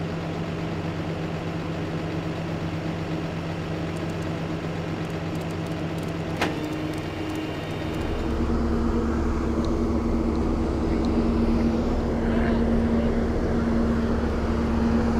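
Vehicle engines running at the roadside: a steady hum with level tones, turning into a louder, deeper engine drone about eight seconds in. A single sharp click about six and a half seconds in.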